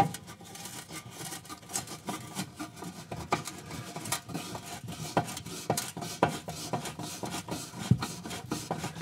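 Self-tapping screw being turned by hand with a screwdriver into the oven's sheet-steel back plate: an irregular run of small scraping clicks and creaks as the thread cuts into the metal.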